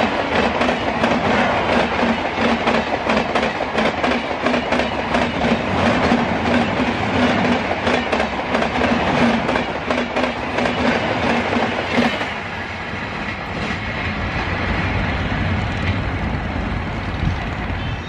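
Passenger coaches of an express train passing at speed: rapid clickety-clack of the wheels over the rail joints. About twelve seconds in, the clatter gives way to a softer, lower rumble.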